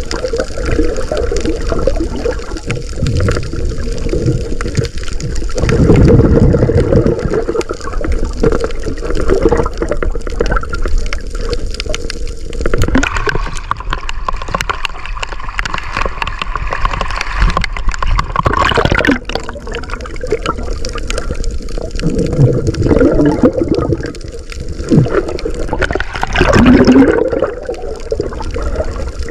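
Water gurgling and sloshing around a camera held underwater, muffled. It changes to brighter splashing of waves for several seconds in the middle, when the camera is at the surface.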